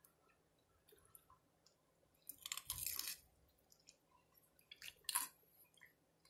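A person biting into and chewing a crunchy taco cup shell filled with chicken and cheese, dipped in salsa: a burst of crunching about two and a half seconds in and another about five seconds in.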